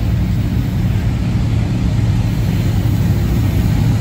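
Freight train rolling past close by: a steady low rumble of boxcars on the rails, under the drone of the diesel engine of a mid-train distributed-power locomotive working up the grade.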